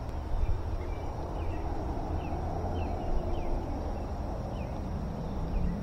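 Outdoor ambience at the water's edge: a steady low rumble with a soft hiss, and a scatter of short, faint, falling chirps.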